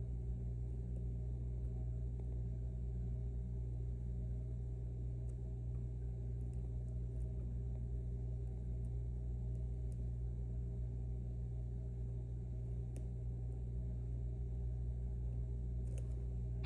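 Steady low hum, with a few faint, widely spaced clicks of a hook pick working the pins of an M&C Matrix lock.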